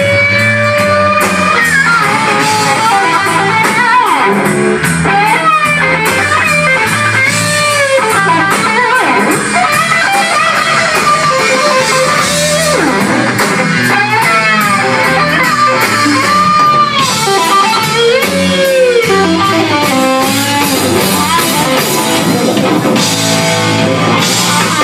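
Live blues-rock band playing: an electric guitar leads with bent, sliding notes over bass guitar and drums.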